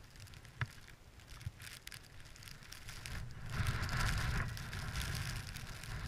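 Rustling and scraping of a climbing rope being pulled in hand over hand through gloved hands, with handling noise from the climber's clothing, loudest a little past halfway. A single sharp click comes under a second in.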